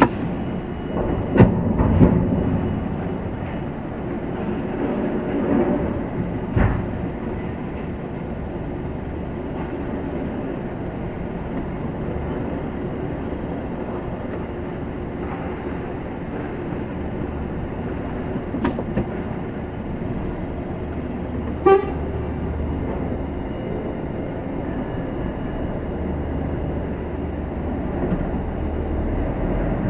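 A heavy goods vehicle's diesel engine runs steadily at low revs, heard from inside the cab as a low rumble. There are a few sharp knocks in the first seven seconds and one short, sharp pitched sound about two-thirds of the way through.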